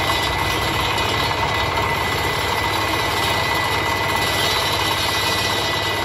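Asphalt cutter repowered with a Dongfeng single-cylinder diesel engine, running steadily under load as its saw blade cuts through asphalt: constant engine clatter mixed with the blade's steady grinding hiss.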